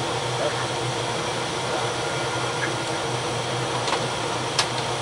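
Steady drone of a steam frigate's engine-room machinery, heard in the main control station, with a low hum under it. A single short click near the end.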